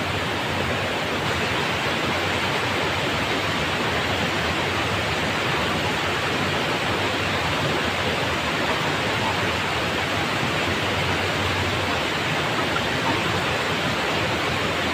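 Water pouring steadily over a low weir into a river pool: an even, unbroken rushing.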